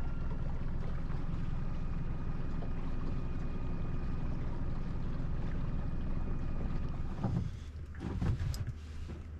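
Small fishing boat's engine running steadily, then dropping to a lower, quieter hum about seven seconds in, with a few knocks near the end.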